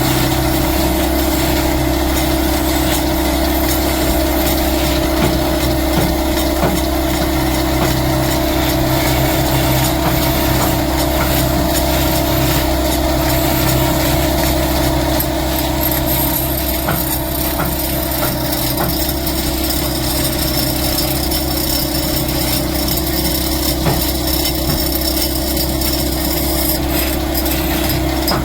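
A woodworking machine's motor running steadily with a constant hum, with light wood-working noise over it.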